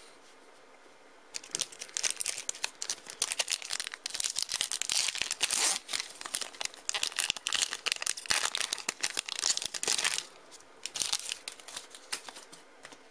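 Foil Pokémon booster pack wrapper crinkling and tearing as the pack is opened, starting about a second in and dying down after about ten seconds.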